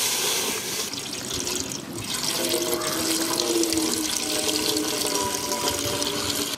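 Milk pouring in a steady stream from a steel pot into a metal pan, splashing into the milk already in it. A faint ringing tone comes in about halfway through the pour.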